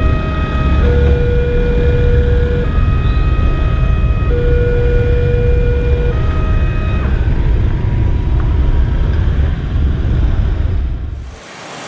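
Railway level-crossing warning alarm sounding a slow two-tone signal, alternating between a lower and a higher tone about every second and a half to two seconds, over a heavy low rumble of the passing train and waiting motorcycle engines. The alarm stops about seven seconds in. The rumble cuts off abruptly just before the end.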